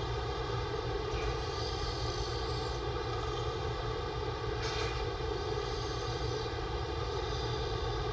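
Steady machine-like hum made of several even tones over a low rumble, with one brief breathy rasp about five seconds in.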